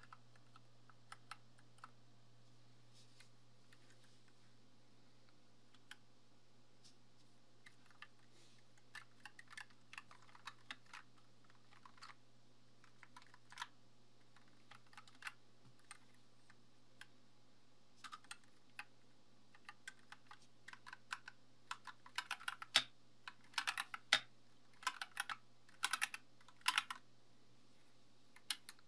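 Keys of a Glorious GMMK 2 mechanical keyboard with linear switches clacking as they are pressed: scattered single presses at first, then quick runs of fast typing near the end. A faint steady low hum runs underneath.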